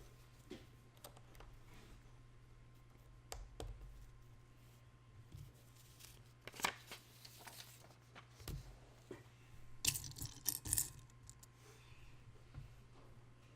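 Small plastic Lego pieces being handled and pressed together: scattered light clicks with a few short rustling scrapes, busiest about halfway through and again around two-thirds of the way in.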